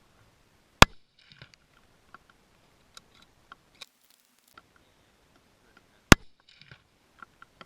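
Two shots from a Ruger Precision Rifle in .308, about five seconds apart, each a single sharp crack followed about half a second later by a brief metallic rattle, with light clicks between.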